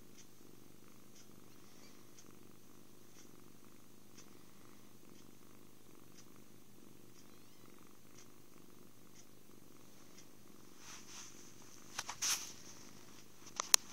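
Kitten purring steadily close to the microphone. Near the end, a few sharp clicks and knocks break in over the purr.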